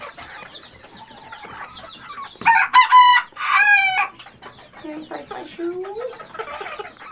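A rooster crows once, about two and a half seconds in: a loud, high call in three quick parts lasting about a second and a half. Hens cluck softly around it.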